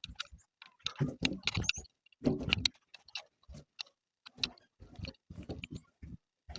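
Irregular clicks, knocks and rustles of hands handling a container and its loose cover, with a few denser bursts of knocking about a second and two and a half seconds in.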